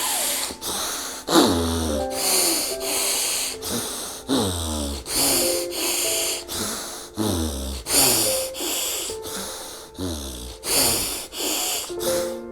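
Rapid, forceful breathing in and out through the nose, about one and a half breaths a second: fast alternate-nostril breathing (Anulom Vilom pranayama). Soft background music plays underneath.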